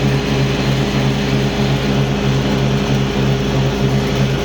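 Exmark Lazer Z zero-turn mower's 19 horsepower Kawasaki V-twin engine running steadily at high throttle, with the 48-inch deck's blades engaged and spinning.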